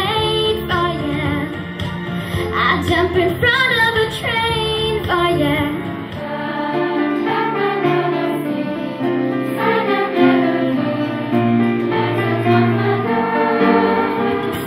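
A young girl singing solo into a microphone over accompaniment. About six seconds in, this gives way to a school choir singing sustained chords, accompanied by acoustic guitar, flute and violin.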